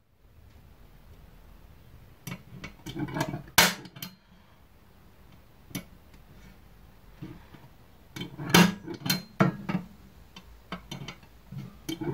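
A hand marking tool scraping and clicking on a thin sheet of steel as lines are scribed in, with a few sharp metallic clicks, the loudest about three and a half seconds in and a cluster near eight to nine seconds.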